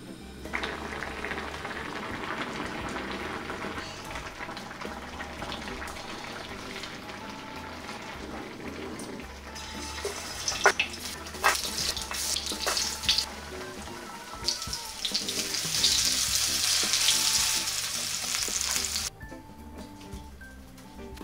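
Chicken nuggets sizzling in hot oil in a nonstick frying pan, with several sharp clicks of metal tongs against the pan. The sizzle cuts off abruptly near the end. Before it, for roughly the first half, there is the softer sound of a pot of kimchi stew being stirred with a wooden spoon.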